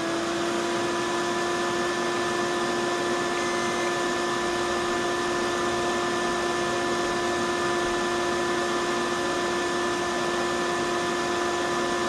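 Desktop computer's cooling fans running steadily after power-on, a constant whirring hiss with a steady whine over it; the fans have just spun up to speed.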